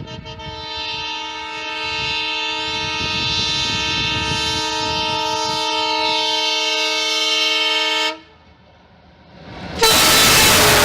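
WDM3A diesel-electric locomotive's air horn sounding continuously for about eight seconds, a steady multi-tone chord growing louder, over the rumble of a running train. It cuts off sharply, and near the end a sudden loud rushing noise breaks in.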